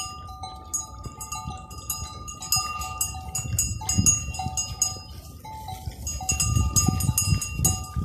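Livestock bells on the sheep clanking and ringing at several different pitches as the flock moves, getting busier over the last couple of seconds.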